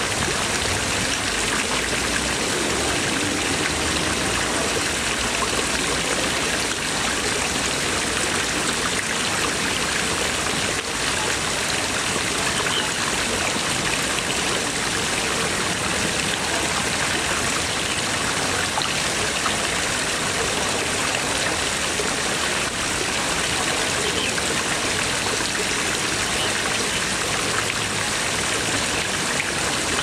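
Water jets from stone dragon-head spouts falling and splashing into a pond in a steady, unbroken rush.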